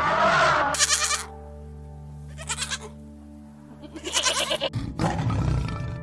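An animal calling several times over steady background music: a long pitched call at the start, three short rasping calls spaced about a second and a half apart, then a rougher, lower call near the end.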